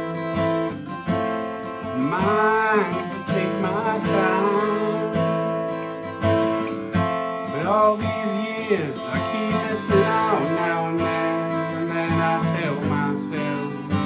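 Acoustic guitar with a home-built neck and an unfinished top, strummed in a steady song rhythm. A man sings drawn-out phrases over it, most clearly a few seconds in and again around the middle.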